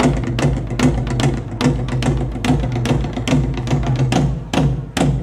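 Percussion music: drums struck about three to four times a second, each stroke leaving a low ringing tone.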